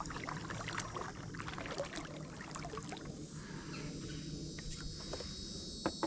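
Paddle strokes and water dripping and lapping around a stand-up paddleboard: a flurry of small splashes and ticks in the first half, fewer later, over a steady low hiss.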